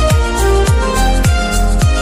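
Background music with a steady beat: a deep kick drum about twice a second under sustained instrumental notes.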